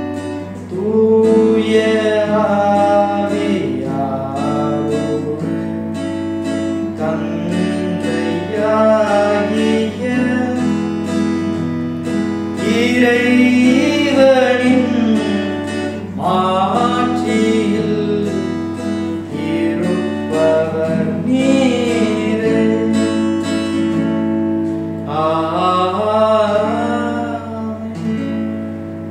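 A voice singing a hymn to strummed acoustic guitar, with a steady low hum underneath; the music fades near the end.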